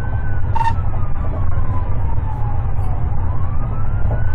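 Police car siren in a slow wail, falling in pitch over about three seconds and rising again near the end, over the heavy low road and engine rumble of the pursuing patrol car at speed.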